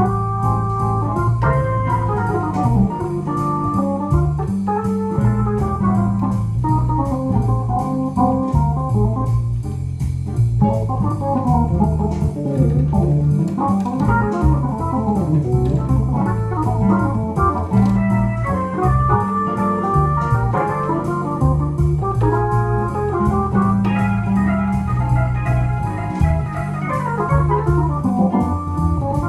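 Electronic jazz organ playing a swing arrangement: a busy right-hand melody over low bass notes that step along steadily.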